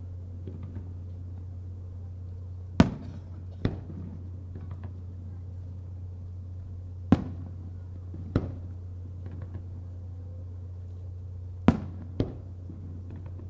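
Aerial firework shells bursting: three sharp bangs about four seconds apart, each followed by a weaker second bang, over a steady low hum.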